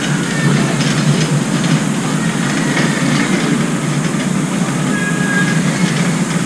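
Steady, loud low rumble of background noise, with a few faint, short high chirps.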